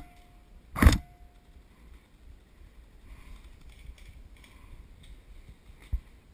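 Two loud sharp bangs about a second apart, each followed briefly by a faint ringing tone, then only faint clicks and rustling, with one sharper click near the end.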